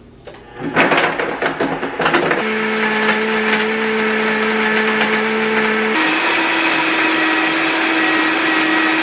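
Countertop blender starting up and blending a thick, hot mix of boiled sea moss, linseed, gum arabic and isinglass, with a cloth held over the jar in place of the lid. It starts loud and uneven, settles into a steady run, and steps up to a higher pitch about six seconds in.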